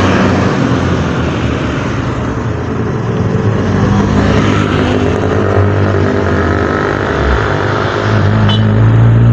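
Road traffic passing close by: vehicle engines running under tyre and road noise, with a low engine hum growing louder near the end as another vehicle approaches.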